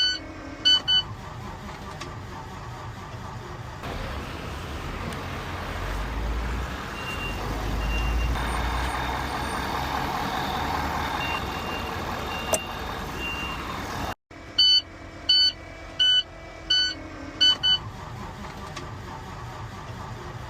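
Steady vehicle noise with a low rumble that builds through the middle, and short electronic beeps: a couple near the start and a run of about six more later on.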